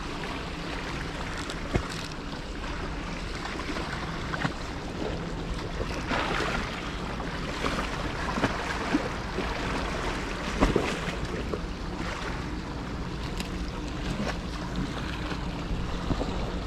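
Sea waves washing against breakwater rocks, with wind on the microphone. A few short sharp clicks and knocks come through, the loudest about two-thirds of the way in.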